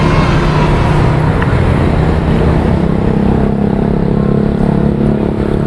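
Road traffic with a motor vehicle's engine running close by, a steady low hum that grows stronger from about two seconds in.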